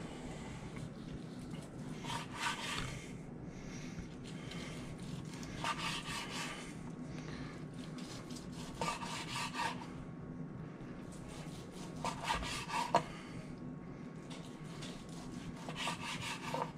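A long slicing knife saws back and forth through a rested smoked tri-tip on a wooden cutting board. Five slices are cut, about three seconds apart, each a short run of strokes.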